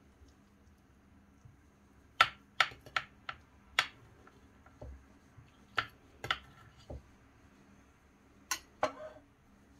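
Metal fork and knife clinking against a glass baking dish while cutting baked meat: about ten sharp clinks in three groups, starting about two seconds in.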